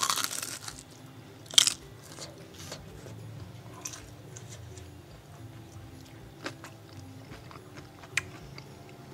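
Biting into crisp deep-fried turon, its lumpia wrapper around sticky ube biko: a crackle at the start and a sharp crunch about a second and a half in, then chewing with a few smaller crunches.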